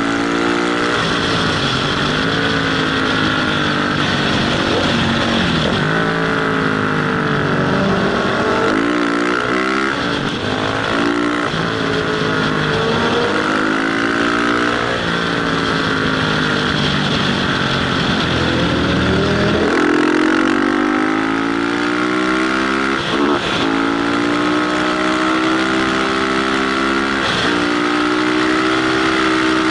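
Motorcycle engine heard from the rider's helmet, revving up and dropping back again and again through gear changes, under steady wind rush over the microphone.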